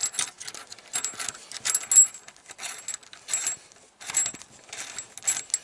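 Rocker arm and its fastener on the cylinder head of a 1991 Tecumseh 5 hp overhead-valve engine clinking and rattling as they are spun loose by hand: irregular short metallic clicks, the loudest about two seconds in.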